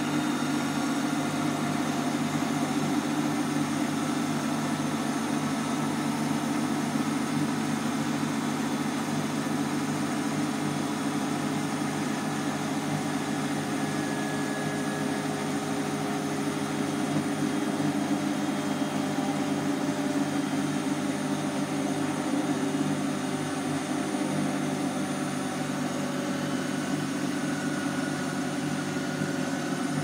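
Hotpoint NSWM 843C front-loading washing machine with an inverter motor, spinning its drum steadily on the final spin at 1200 rpm. It makes a constant, even hum and rush with no change in speed.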